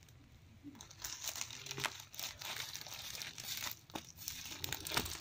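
Plastic courier mailer crinkling and rustling as it is handled and cut open with scissors, with many sharp snips and crackles; it starts about a second in.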